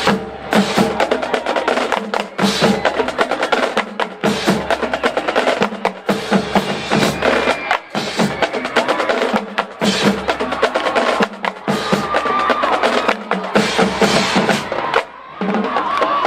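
Marching drumline playing a fast cadence: rapid snare drum strokes and sharp clicks over repeated low drum hits, with a brief break about a second before the end.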